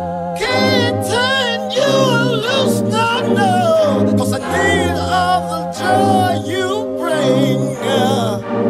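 Background music with layered singing voices over held chords.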